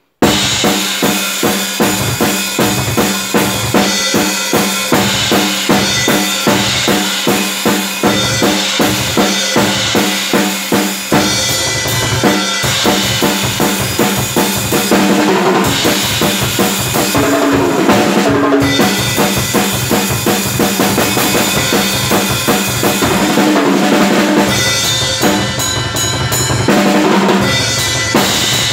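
Drum kit played hard and fast in a thrash-metal style, with bass drum, snare and cymbals. A steady beat with accented hits about twice a second gives way after about ten seconds to a denser, busier pattern with more cymbal wash.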